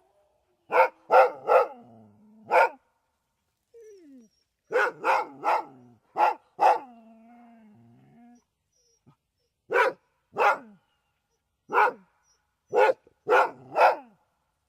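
Siberian husky barking in quick groups of two to four sharp barks with pauses between, and a low drawn-out whine trailing after some of the groups.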